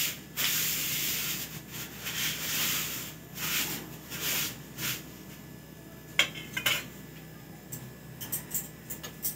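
Metal spatula scraping and pressing against a tawa as an onion paratha fries, in a run of rasping strokes for about the first five seconds. Later come a few sharp metallic ticks on the pan.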